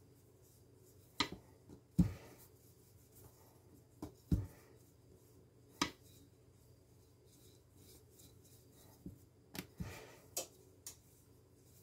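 Thin wooden rolling pin rolling out a ball of samosa dough on a laminate countertop: quiet rubbing, broken by scattered sharp knocks of the pin against the counter, several close together near the end.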